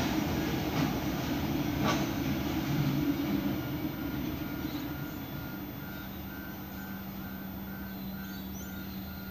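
Container freight train rumbling away into the distance, fading over the first few seconds. Then a high electronic beep repeats about twice a second over a steady low hum.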